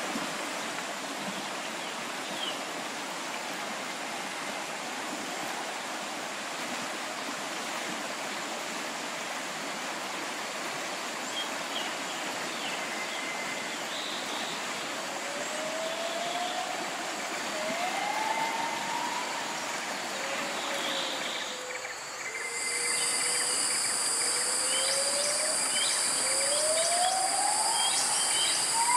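Shallow rocky river running, with scattered bird chirps and a few rising calls. About 22 seconds in the water sound drops away and a steady high-pitched drone takes over, a little louder, with more rising calls over it.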